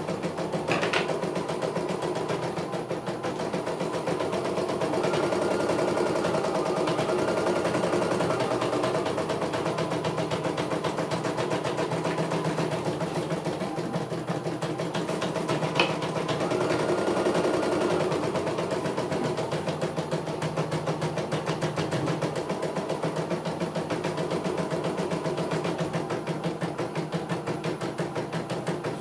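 CNY E900 computerized embroidery machine running, a rapid steady stitching clatter over its motor hum. Twice a higher tone comes in for a couple of seconds.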